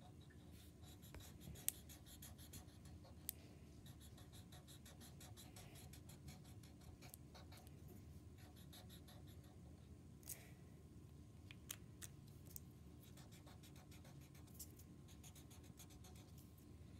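Felt-tip marker scribbling on paper while colouring in: faint, quick back-and-forth strokes, with a few sharper ticks among them.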